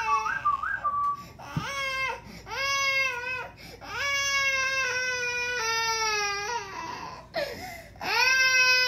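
Toddler crying in a tantrum: about five long, high wails, with short gasping breaths between them.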